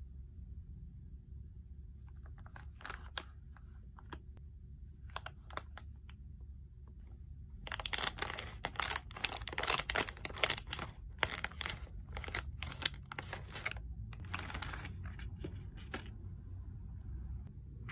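Plastic candy-kit bag crinkling in the hand, then scissors cutting across the top of the bag. From about eight seconds in there is a loud run of crackling snips lasting about six seconds, followed by lighter crinkling of the plastic tray.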